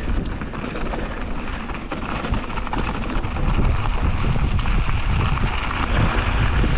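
Mountain bike descending a dirt trail at speed: wind buffeting the action camera's microphone over the rush of tyres on loose ground, with many small clicks and knocks from gravel and the bike rattling. It grows louder about halfway through.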